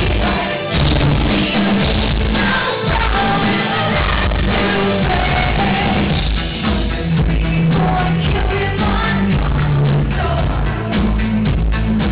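Live rock band playing loudly with guitars, drums and keyboards while a woman sings into a microphone, heard from within the crowd.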